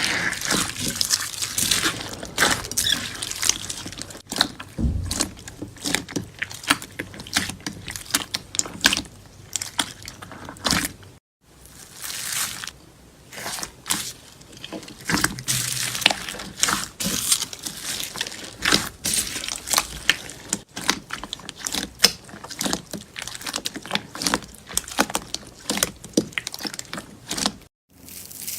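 Slime being squished, pressed and pulled by hand, making a dense, irregular run of quick clicks and small pops, with a brief break a little before halfway.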